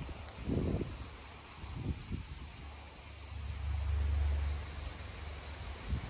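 Cicadas droning steadily with a stream babbling underneath, and gusts of wind buffeting the microphone in low rumbles, the strongest about four seconds in.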